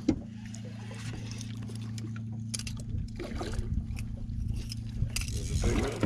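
Steady low hum of a boat's motor, with a sharp knock right at the start. Near the end a hooked redfish churns and splashes at the surface.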